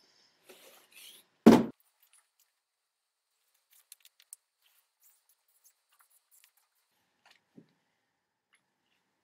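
A couple of light scuffs, then a single loud thump about a second and a half in, followed by scattered faint rustles and small clicks of cards being handled.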